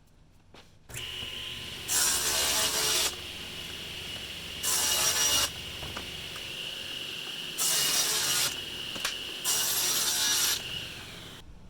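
An electric power saw starts up and runs with a steady high whine, making four cuts through wood of about a second each, then is switched off and winds down near the end.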